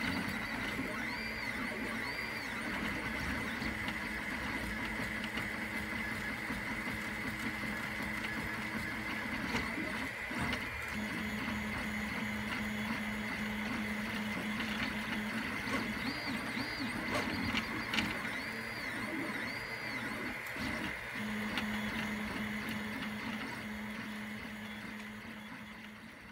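Wanhao FDM 3D printer running a print. Its stepper motors whine in low tones that stop and start as the head moves, over a steady fan whir with a high tone. The sound fades out at the very end.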